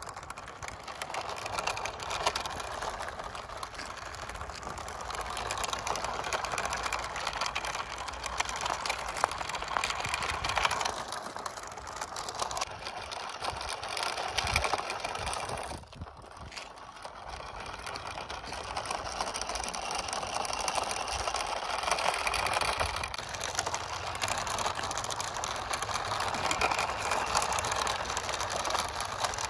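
Toy RC monster truck's small electric motor and plastic gearbox whirring as it drives, with a grinding, ratchet-like chatter; it drops away briefly about halfway through, then runs again.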